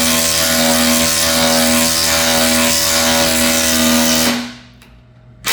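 Cordless impact driver hammering a fastener into wood: a loud, steady buzzing rattle that stops abruptly about four seconds in. A sharp knock comes right at the end.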